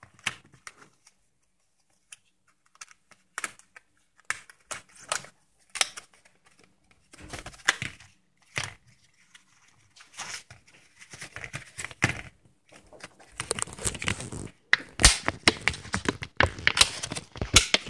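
Clear plastic blister pack being handled and torn open by hand: scattered crackles and clicks of the plastic, coming thicker and louder over the last few seconds.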